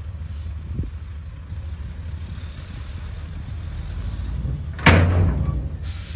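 Komatsu bulldozer's diesel engine running with a steady low rumble, and one sudden loud bang about five seconds in.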